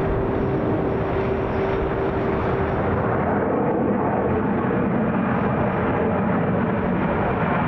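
Jet airliner engines heard as a steady, even rush of noise, with a steady hum that fades out about three seconds in.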